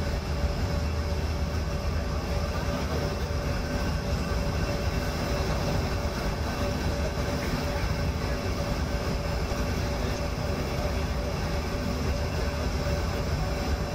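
Steady cabin noise of an airliner on final approach, heard from inside the cabin: engines running and air rushing past the fuselage, with a few steady humming tones over a deep low hum.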